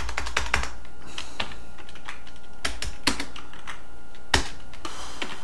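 Typing and clicking on a computer keyboard: irregular sharp key clicks, the loudest a little past four seconds in, over a low steady hum.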